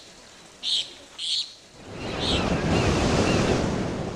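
End-screen sound effects: a few short high chirps in the first two and a half seconds, then a swell of rushing noise like surf that rises about two seconds in and fades out at the end.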